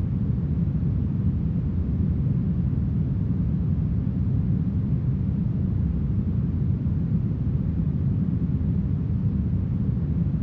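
Smoothed brown noise: a steady, deep hiss weighted toward the low end, even and unchanging throughout.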